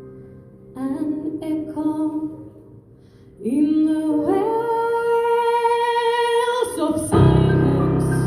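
Female vocalist singing with piano accompaniment. A sung phrase leads into one long held note, then the piano comes in with a loud chord near the end.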